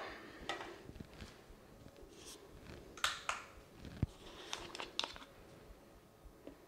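Faint, scattered clicks and taps of containers being handled while olive oil is measured out on a kitchen scale, with a dull knock about four seconds in.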